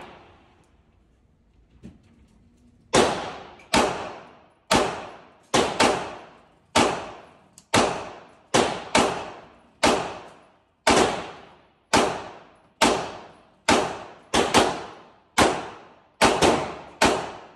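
Pistol fired repeatedly in an indoor shooting range: about twenty sharp shots starting a few seconds in, spaced roughly half a second to a second apart, each trailing off in the range's echo.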